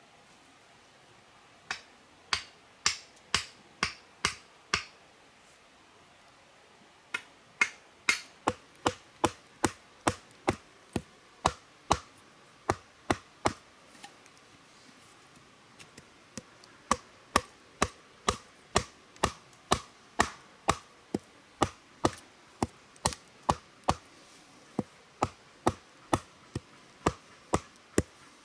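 Repeated sharp knocks of a tool striking something hard, about two a second, in three runs with short pauses between. Some strikes carry a faint ring.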